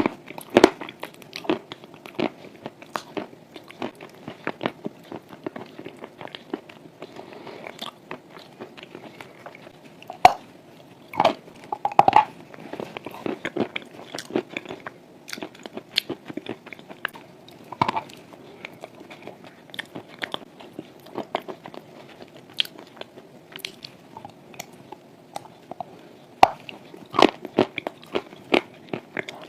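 A person biting and chewing dry chalk with clay paste: a steady run of irregular crisp crunches, with a few louder bites now and then.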